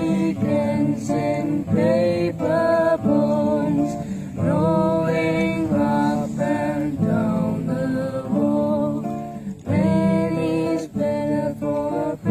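Music: a song with acoustic guitar accompaniment and a singing voice.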